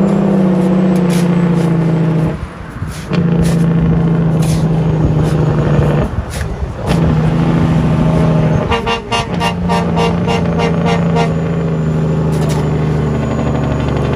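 Dump truck diesel engine pulling hard uphill at a steady high pitch, dropping away briefly three times. For a few seconds past the middle a fast rattling pulse, about five a second, sits over the engine.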